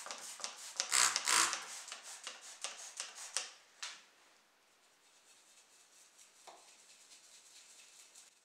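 Quick rubbing strokes of a brush scrubbing a grimy model car body, loudest about a second in. They stop about four seconds in, leaving only a faint hiss.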